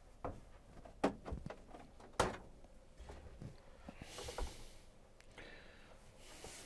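A few scattered knocks and clicks, the loudest about two seconds in, with a short rustle near the middle: objects being handled and set down.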